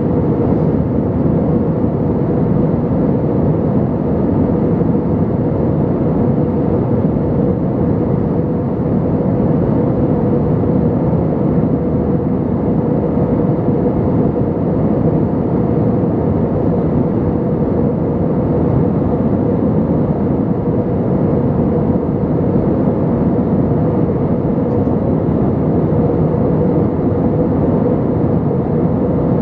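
Airbus A320 cabin noise during the climb after takeoff: the steady low roar of the engines and rushing air, heard from a window seat over the wing, with a faint steady hum on top.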